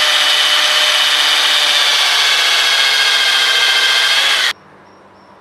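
Power drill boring a hole into the end of a softwood block, a loud, steady grinding of the bit cutting wood, which stops abruptly about four and a half seconds in.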